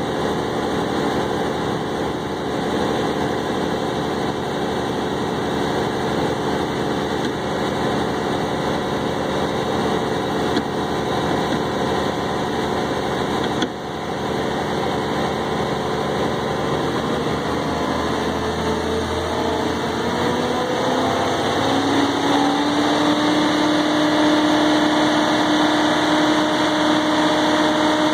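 Packer Industries wood grinder running steadily with its engine going. About two-thirds of the way through its pitch rises and settles into a steady higher hum as the machine speeds up after being put in drive.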